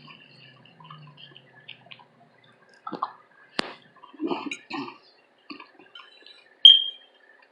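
Close-up eating sounds: wet chewing and mouth noises with scattered small clicks, a sharp click about three and a half seconds in, and a short, bright clink near the end.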